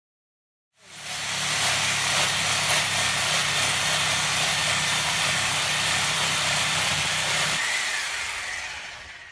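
Handheld power cutter, a yellow cordless grinder, cutting into the house wall: a loud, steady grinding that starts about a second in. Its low hum stops near the end and the grinding then fades away.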